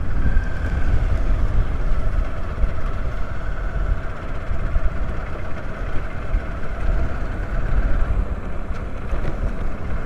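Motorcycle engine running steadily while riding, with a constant low rumble of wind and road noise and a faint steady whine.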